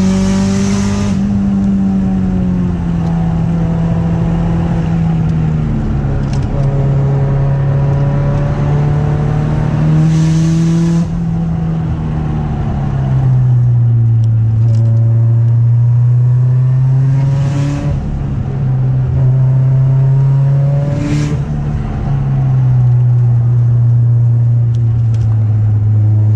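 A car engine running under steady load, its note gliding slowly up and down with the revs and dropping clearly twice, about two seconds in and again near the middle. A few short hissing whooshes come over it now and then.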